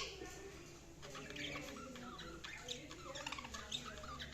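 Budgies chirping and warbling softly, a steady chatter of many short chirps.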